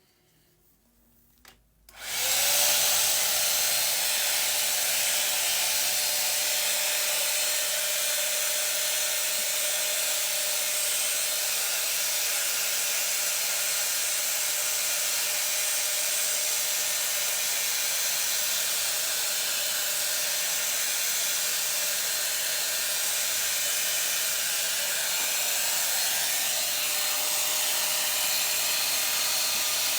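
5-in-1 hot-air hair dryer brush with its curling attachment switched on about two seconds in, then blowing steadily with a high whine from its motor as it curls and dries wet hair.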